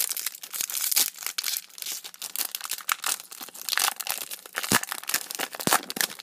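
Foil wrapper of a Pokémon trading-card booster pack crinkling and crackling in the hands as the pack is opened, a dense run of crackles with a few sharper snaps near the end.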